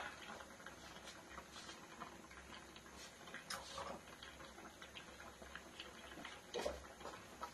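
Near silence: quiet room tone with faint, irregular light ticks and a couple of soft taps.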